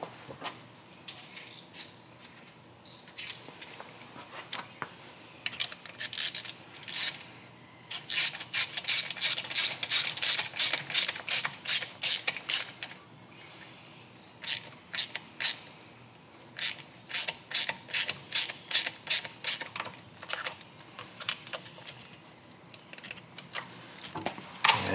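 Hand ratchet clicking as the shifter peg is tightened onto a motorcycle's shift lever: a few short strokes, then two long runs of quick, even clicks, about four or five a second.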